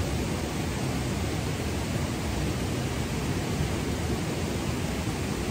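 A mountain stream flowing: a steady, even rush of running water.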